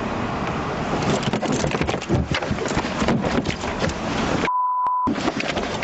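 Scuffling in the back seat of a police car: clothing rustling and repeated knocks and bumps against the seat and door, over a steady hiss. About four and a half seconds in, a short steady censor beep cuts in over the sound.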